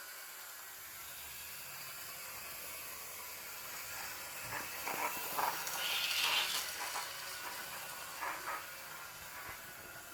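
Model BB 67001 locomotive with a freshly repaired motor running on its track: a steady hiss and hum, with a run of clicks and rattles through the middle, loudest a little past halfway.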